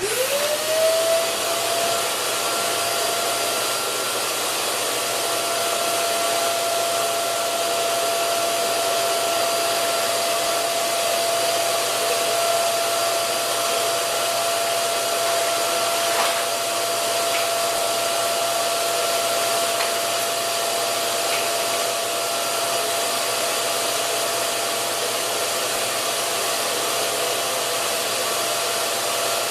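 Vacuum motor for a CNC vacuum table switched on: it spins up with a rising whine over about a second, then runs with a steady loud whir and a held high whine, pulling the workpiece down onto the table.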